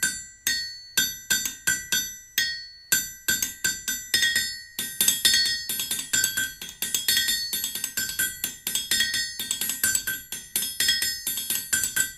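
Background music: a tune of quick, bright struck notes with a steady beat, growing fuller about five seconds in.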